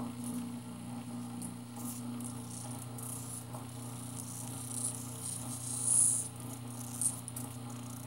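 Single-phase capacitor washing-machine motor (180 W, 127 V, 60 Hz) running steadily with a low mains hum, turning in reverse after its capacitor leads were swapped. High scratchy rustling from gloved fingers brushing the spinning pulley, loudest about six seconds in and again near seven.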